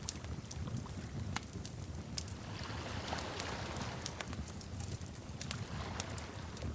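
Wood fire crackling: scattered sharp pops at irregular intervals over a low steady rumble, with a soft hiss swelling in the middle.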